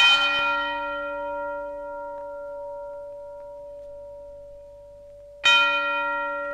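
An orchestral bell is struck twice, once at the start and again about five and a half seconds in. Each stroke rings on the same pitch and fades slowly.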